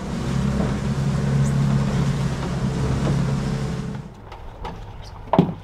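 Boat's outboard engine running steadily at speed, with the rush of wind and water over it; the engine noise falls away about four seconds in. A short, sharp knock follows near the end.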